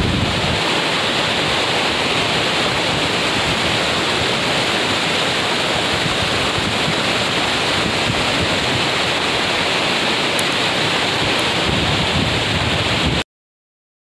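Monsoon-swollen waterfall pouring down a rock face: a loud, steady rush of falling water that cuts off suddenly about a second before the end.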